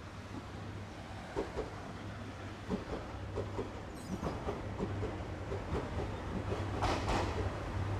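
Diesel train passing, its wheels clacking over the rail joints in quick pairs and growing steadily louder, over a steady low hum.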